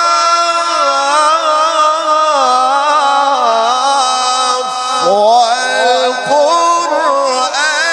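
A man reciting the Quran in the melodic, drawn-out mujawwad style: one voice holding long notes with wavering ornaments, then starting a new rising phrase about five seconds in.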